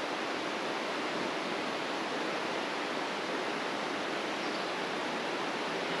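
Steady rushing of a river and waterfall, an even noise with no changes.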